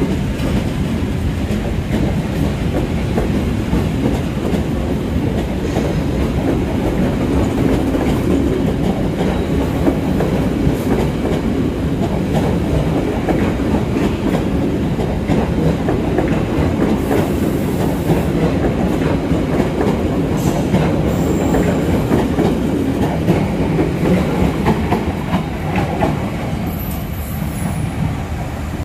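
Passenger train of stainless-steel coaches rolling past close by, a steady rumble with wheels clicking over the rail joints. There are a few brief, faint high wheel squeals. The noise eases a little near the end as the last coach draws away.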